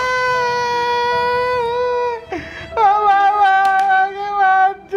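A man wailing in long, drawn-out cries, broken about halfway through by a sharp gasping breath before the wailing starts again.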